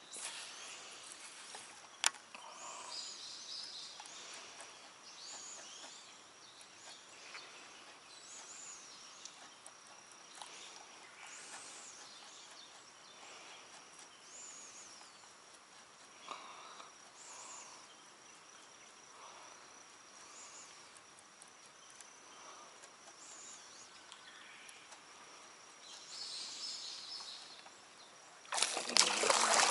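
Small birds chirping and singing in short rising and falling calls, with a steady high tone through the middle. Near the end, sudden loud splashing of water as a hooked fish thrashes at the surface.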